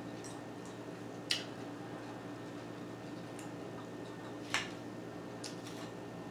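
Quiet eating sounds: a fork picking at salad in a bowl, with a few short sharp clicks, the two loudest about a second in and about four and a half seconds in, over a steady low room hum.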